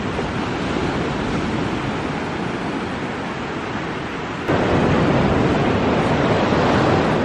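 Ocean surf breaking on a sandy beach, mixed with wind on the microphone: a steady rushing noise that jumps louder about four and a half seconds in.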